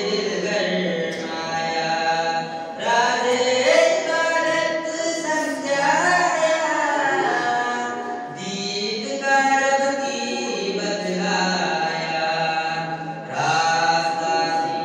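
A man's unaccompanied voice chanting a naat, a devotional poem, in long melodic phrases with held, wavering notes; a new phrase begins about every five seconds.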